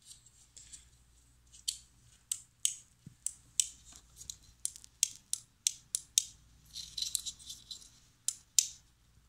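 Small plastic clicks from an opened Ford Expedition door lock switch being worked back and forth, repeated about twice a second, with a brief scratchy rustle of handling about seven seconds in. The switch sticks when opening and closing, which the owner suspects is from dirt inside.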